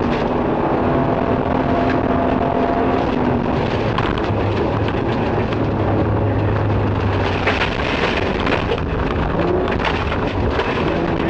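Nissan Skyline rally car at speed on a gravel stage, heard from inside the cabin: the engine runs hard under steady tyre and road noise, with a spell of sharp clicks and rattles about two-thirds of the way through.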